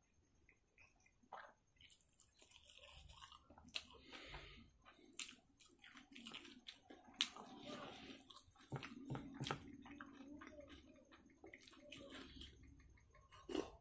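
Quiet, wet eating sounds: a person chewing and smacking their lips, with irregular sharp mouth clicks while eating rice by hand.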